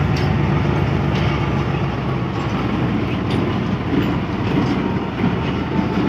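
Pakistan Railways GMCU-15 diesel-electric shunting locomotive passing close by, its diesel engine running steadily with the throttle notched up. A few faint clicks come from the wheels on the rails.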